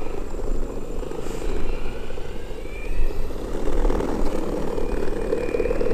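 Electric skateboard rolling fast over bumpy pavement, a dense, steady rumble with wind buffeting the microphone.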